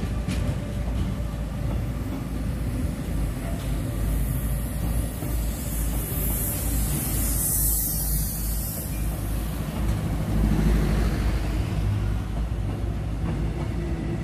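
Intermodal freight train of semi-trailers on pocket wagons running past: a steady rumble of wagon wheels on the rails, with a high hiss rising for a few seconds around the middle.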